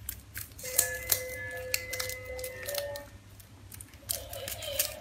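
BOPP plastic wrapping film crinkling and clicking as it is folded by hand around a small box. Background music with held notes plays underneath.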